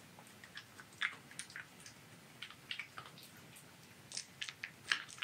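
Silver fox (a melanistic red fox) chewing a piece of dried pumpkin: faint, irregular crunches and clicks.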